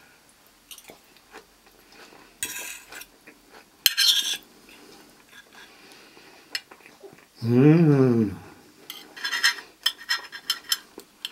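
Cutlery clinking and scraping on a plate during tasting, with a run of sharp ringing clinks near the end. About two-thirds in there is one short hum from a person, rising then falling in pitch.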